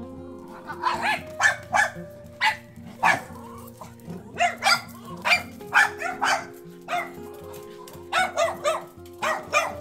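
A small dog barking: sharp, high-pitched yaps in quick runs of two to four, repeated many times.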